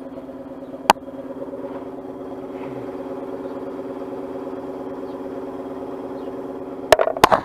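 An engine or motor running steadily at idle, with a sharp metallic click about a second in and two more close together near the end.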